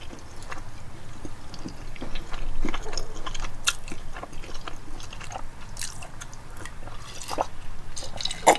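Close-up eating sounds: wet chewing and small, irregular lip smacks while eating loco moco (rice, beef patty, egg and gravy), with a sharper click near the end.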